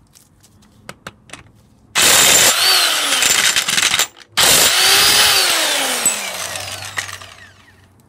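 Cordless power tool with a socket undoing a motorcycle's front sprocket bolt, run twice on the trigger. Each time the motor's whine rises, then slides down as it winds down, and the second run is longer.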